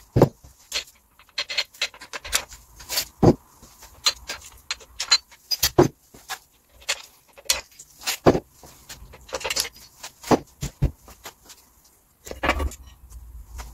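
Irregular metallic clinks and knocks of tools and engine parts being handled as the crankshaft is taken out of a Citroen Saxo engine block, with a few heavier thuds among them.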